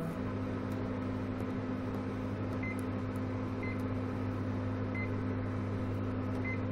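A Whirlpool UKM 120 850-watt microwave oven running with a steady hum. A few short, faint beeps sound over it.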